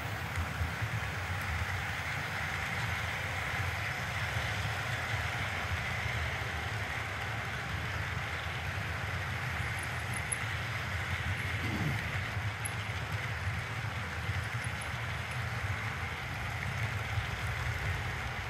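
Model freight cars rolling past on the layout track: a steady, fluttering rumble of small metal wheels on the rails and rail joints.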